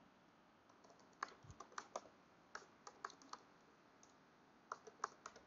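Faint computer keyboard keystrokes in three quick runs, typing a file name.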